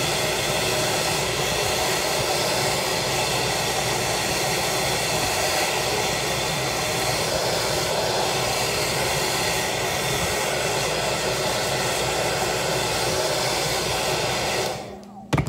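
Handheld hair dryer blowing steadily, drying fresh homemade egg noodles; it is switched off near the end.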